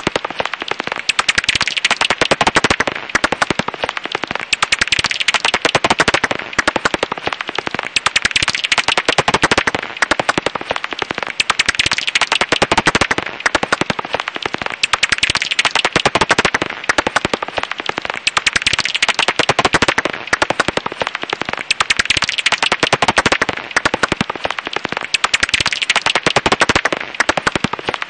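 Japanese house bat (Pipistrellus abramus) calls heard as a dense, rapid crackle of clicks, coming in bursts that swell and ease about every two seconds.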